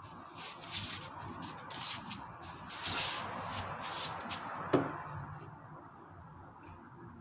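Hand trigger spray bottle squirting cleaner onto a scooter's body in a quick, irregular run of short hissing sprays, followed by a single sharp knock.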